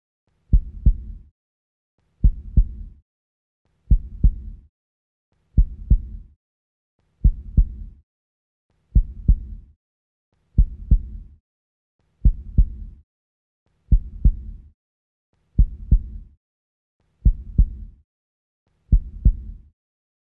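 Slow heartbeat-like double thump: pairs of low beats, two quick strikes each, repeating about every 1.7 seconds with silence between, twelve times.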